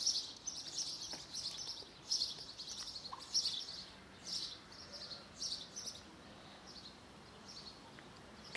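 Small birds chirping outdoors in short, high-pitched calls, several a second at first, thinning out to a quieter stretch about six seconds in.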